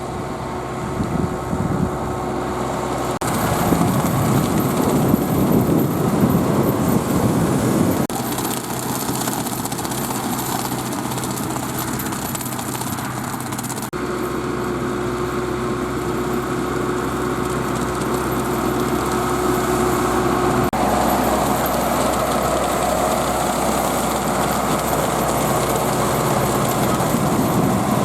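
Zetor 10540 tractor's diesel engine running steadily under load while driving a rotary mulcher through maize stubble. The tone and loudness change abruptly a few times, loudest for several seconds near the start.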